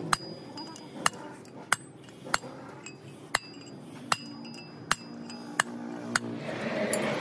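Sharp metal-on-metal taps, about nine of them at a slow, fairly even pace, each with a short bright ring: a steel drift struck against a tapered roller bearing on a truck differential carrier, working round it to seat it.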